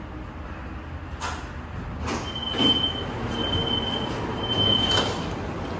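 Dubai Tram station doors sliding open with a few clunks while a high warning beep sounds three times, the door-open signal, over the low rumble of the tram standing at the platform.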